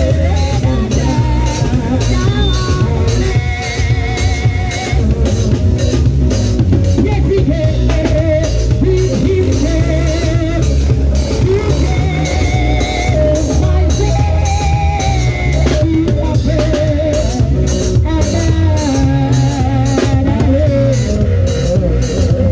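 Live band music: a drum kit keeping a steady beat with cymbal hits, under an electronic keyboard and a sung melody with wavering held notes.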